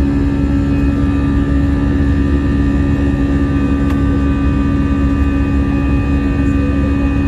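Airbus A320 jet engines running at steady power, heard from inside the cabin: a loud, even drone with a strong low hum and several fainter high whining tones, unchanging throughout.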